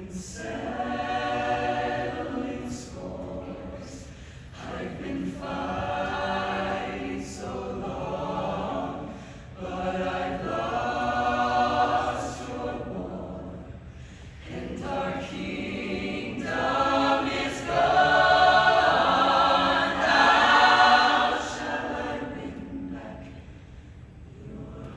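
Show choir singing in phrases that swell and fall back with short breaks between them, loudest in a swell about three-quarters of the way through.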